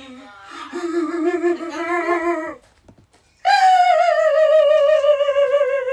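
A vocal sound effect: a voice holding long, wavering notes. A low note lasts about two and a half seconds and breaks off, then after a brief gap a higher note slowly slides downward.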